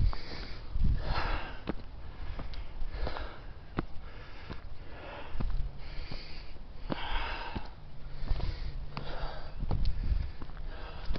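A hiker breathing hard on an uphill climb, a rushing breath about once a second, with short sharp ticks of footsteps on the trail.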